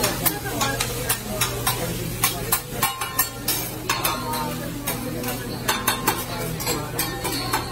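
Fried rice sizzling on a steel teppanyaki griddle while metal spatulas scrape and clack against the hot plate in a quick, irregular clatter.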